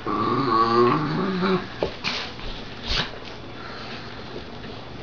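Puppies play-fighting: a whiny growl for the first second and a half, then a few sharp knocks from the scuffle.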